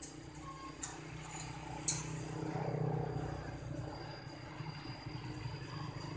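Small engine running at a steady idle, swelling slightly in the middle, with two sharp metal clanks early on from work on the bench.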